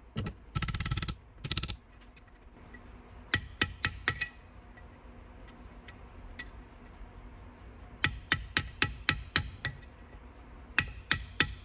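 Small hammer striking a steel punch to bend down the old, stress-split locking tabs on the oil pump bolts of a 1275 A-Series engine block. The sharp metallic taps come in runs: a few about three seconds in, a quick series of about seven later, and more near the end.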